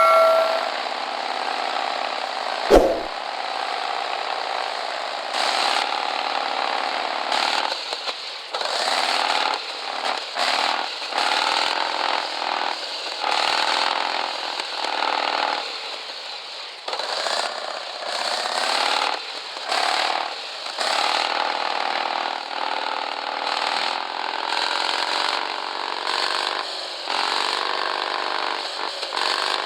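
Electric motor and gearbox of a radio-controlled 4x4 scale crawler whining under throttle. The pitch rises and falls and cuts out briefly many times as the throttle is worked on and off.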